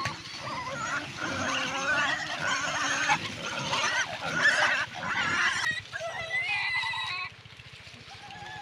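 Several small pigs squealing at once, in high wavering overlapping calls that drop off suddenly about seven seconds in.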